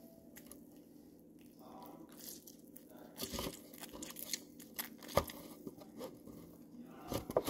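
A lemon half squeezed by hand over a plastic cup, the peel and pulp crackling and squishing in short irregular clicks from about three seconds in.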